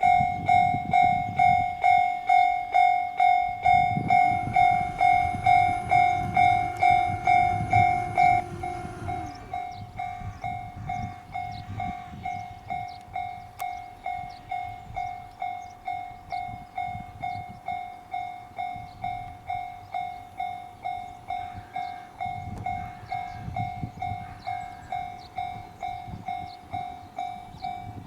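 Japanese level-crossing warning bell ringing electronically, about two dings a second without a break. A train rumbles through from about four to nine seconds in, and after that the bell carries on at a lower volume.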